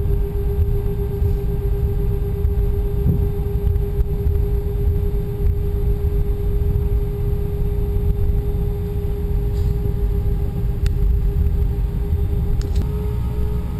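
Steady low rumble of a vehicle in motion, with a constant hum over it.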